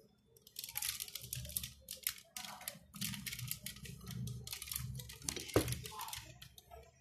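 Plastic parts and joints of a large 1/48 scale Gundam model kit clicking, creaking and rubbing as its legs are posed by hand, with one sharper knock late on.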